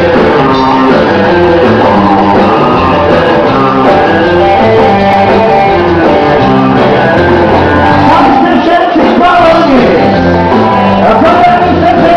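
Live rock and roll band playing loudly, with a singer.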